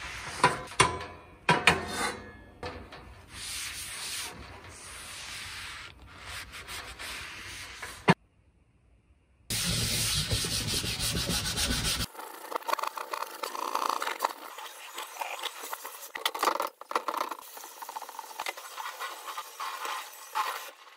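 A paper towel rubbing and wiping across a greasy stainless steel griddle plate, with a few sharp knocks in the first two seconds. After a short silence, there are a couple of seconds of steady rushing noise, then a sponge scrubbing the steel plate in a stainless sink.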